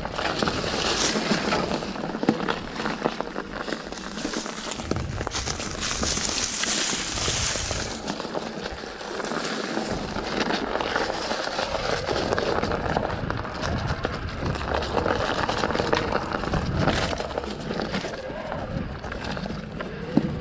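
Mountain bike tyres rolling over dry fallen leaves and forest dirt: a continuous crackling rustle, with rattles and knocks from the bike over bumps, the sharpest about two seconds in and just before the end.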